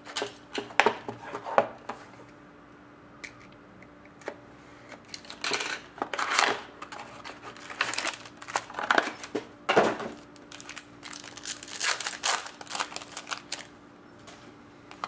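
Baseball card packs and cards being handled: a wrapper crinkling and tearing, and cards sliding and rustling against each other in irregular bursts.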